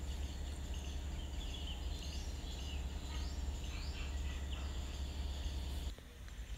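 Birds chirping faintly over a steady low rumble; the rumble cuts off about six seconds in.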